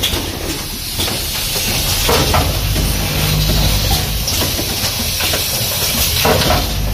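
Automatic rapid test kit assembly machine running: a steady hiss over a low hum, with sharp clacks of its mechanism, one right at the start, another about two and a half seconds in and another near the end.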